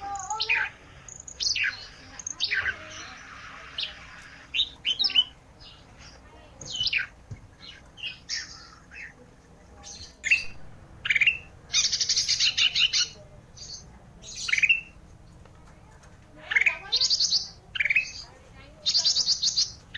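A small songbird known in Indonesia as the 'ranting' singing in full voice: quick, sharp, sweeping chirps broken by several buzzy trills of about a second each, the loudest in the middle and near the end.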